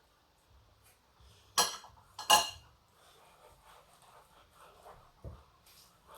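Cutlery clinking against a dish twice, sharp and ringing, about one and a half and two and a half seconds in, with fainter scattered clinks and handling sounds afterwards.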